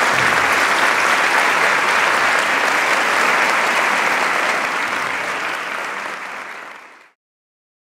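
Audience applauding after the speaker's thanks, a steady clapping that fades out about five to seven seconds in and then stops.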